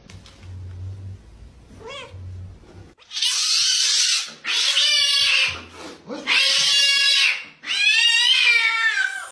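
A cat screeching and yowling: four long, loud, harsh calls from about three seconds in, after a faint short meow near two seconds.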